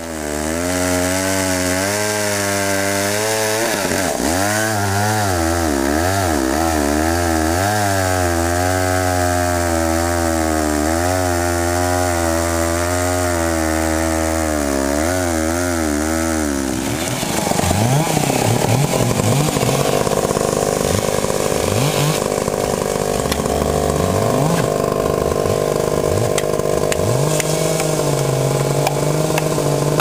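Two-stroke chainsaw running loud and continuously while cutting into a large log, its engine speed wavering under load. About seventeen seconds in the sound changes, with the engine revving up again and again as the bar works through the cut.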